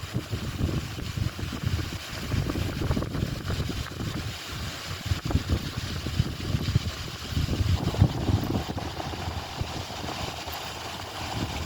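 Wind buffeting a phone's microphone: an irregular, gusty rumble. About eight seconds in the buffeting eases into a steadier hiss.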